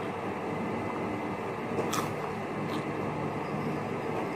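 Chewing on a crisp fried corn tostada, with a sharp crunch about two seconds in and a fainter one just after, over a steady background hum.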